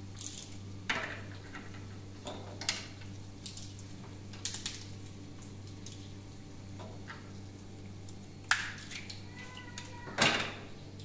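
Kitchen utensils and dishes clinking and knocking now and then during food preparation, the loudest knock near the end, over a steady low hum.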